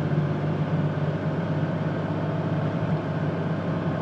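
Cab interior sound of a 1999 Dodge Ram 2500's 5.9-litre 24-valve Cummins turbo diesel inline-six pulling steadily at about 2,000 rpm. The truck is accelerating in third gear of its automatic transmission, between the 2–3 and 3–4 upshifts.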